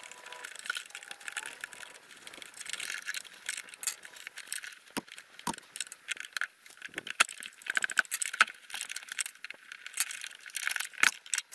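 Hard plastic and metal parts clicking, scraping and rattling irregularly as the retaining ring and clamp on a Solo backpack sprayer's pump are worked loose by hand, with a few sharper knocks.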